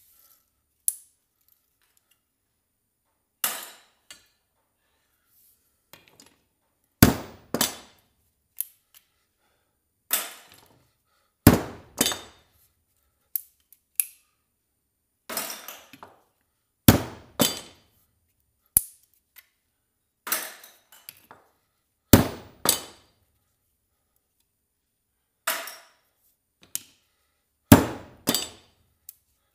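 Hammer blows on scrap copper: sharp metallic strikes every second or two, often in quick pairs, each with a brief ring.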